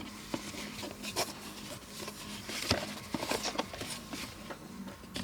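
A cloth wiping the fireplace lamp's front glass panel: scattered rubbing and small clicks of the plastic housing being handled, over a faint steady hum.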